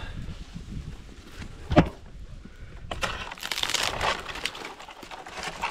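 Rustling and scraping of palm fronds and rope as a climber works in the crown of a coconut palm, with one sharp knock a little under two seconds in and a longer spell of rustling about three seconds in.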